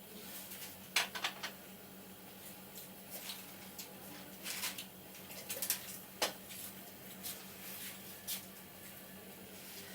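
A barber's hands working over a head in a massage: scattered light taps, sharp clicks and rubbing of skin and hair, with a quick cluster of clicks about a second in, over a faint steady hum.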